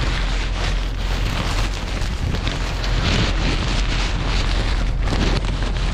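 Wind buffeting the microphone: a steady rushing noise over a low rumble.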